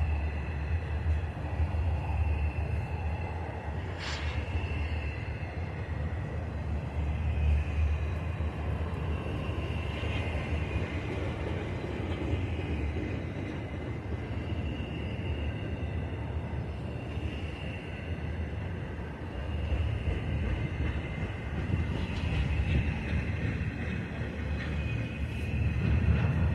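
Long freight train's cars rolling past on the rails, with a faint high whine coming and going. Heavy wind rumble on the microphone.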